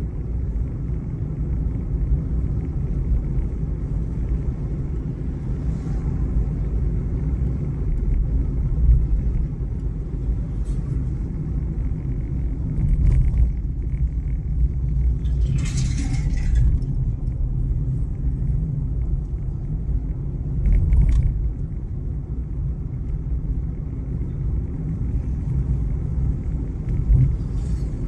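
A car driving along a paved road: a steady low rumble of engine and tyres. Now and then a brief hissing noise rises over it, the loudest about halfway through.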